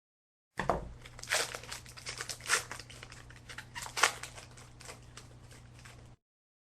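A trading-card pack wrapper being torn open and crinkled, with cards handled in between. Sharp crackles stand out about a second and a half, two and a half, and four seconds in.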